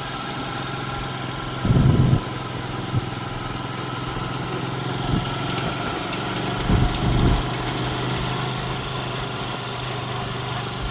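Steady hum of an idling engine, with a dull low thump about two seconds in and another about seven seconds in. Rapid high ticking runs briefly through the middle.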